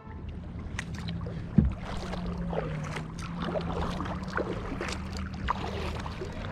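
Water splashing and dripping around a kayak on the water, with scattered small splashes, one sharp knock about a second and a half in, and a faint steady low hum underneath.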